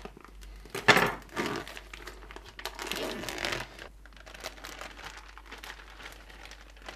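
Plastic bags crinkling and rustling as a vacuum-sealed pack around a beef roast is cut open and the meat moved into a thin dry-aging bag, in irregular bursts with the loudest crackle about a second in.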